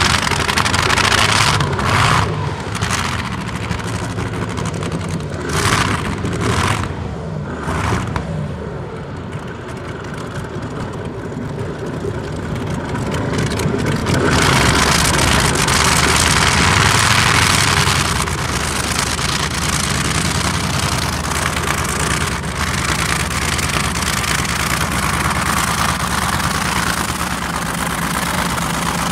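Supercharged, methanol-fuelled Isotta-Fraschini W18 engine of a modified pulling tractor, blipped in several short revs, then running at full throttle under load during a pull from about halfway through.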